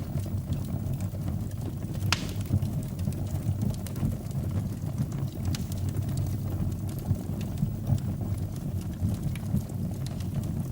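Wood fire burning in a fireplace: a steady low rumble of the flames with scattered crackles and pops, one sharper pop about two seconds in.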